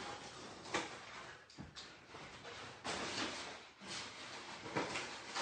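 Scattered scuffs, rustles and knocks of a person moving about and walking up across a wooden floor.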